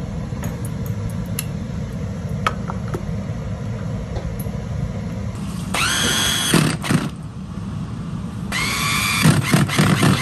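Electric food chopper's motor whining up and running in two pulses, chopping cooked rice and garlic in its glass bowl. The first pulse starts about halfway through and lasts over a second; the second runs for about two seconds near the end. A few light clicks come earlier as the bowl and motor head are handled.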